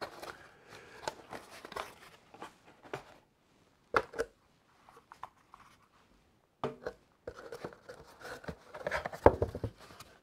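Cardboard packaging being handled: scattered rustles, scrapes and light knocks as a cardboard insert and a small cardboard part are lifted out and set down, with a sharp knock about four seconds in and busier rustling near the end.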